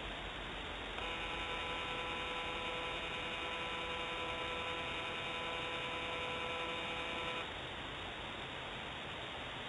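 Pan motor of a remote nest camera whining steadily as the camera pans. The whine holds several pitches at once, starts about a second in and cuts off near the end, over a constant hiss.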